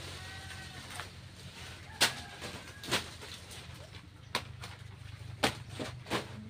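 About six sharp, irregularly spaced strikes of a blade chopping into a banana plant. A bird calls briefly near the start.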